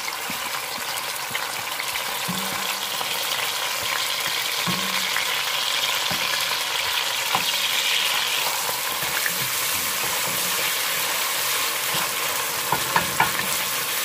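Chopped onions, olives and other ingredients sizzling in hot oil in an enamelled pot, the steady sizzle swelling a little midway as a wooden spoon stirs them, with a few light spoon knocks and clicks near the end.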